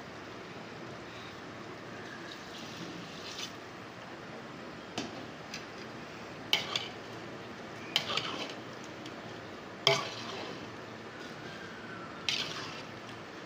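A metal spoon knocking and scraping against the side of a large metal cooking pot, about seven sharp clinks, while rice is stirred into the curry and water in the pot.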